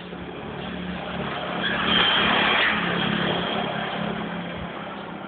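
A road vehicle driving past on the street, its sound swelling to a peak about two seconds in and then fading away.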